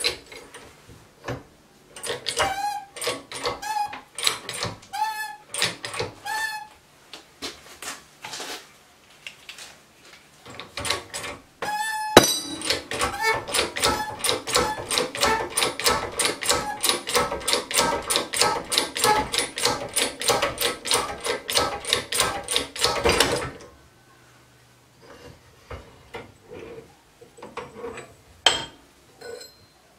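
Homemade hydraulic press being worked by hand: repeated metallic clicks and squeaks from its pump lever. In the middle comes a long run of fast, even strokes that stops abruptly. It is pressing rubber silent-block bushings in a car suspension arm.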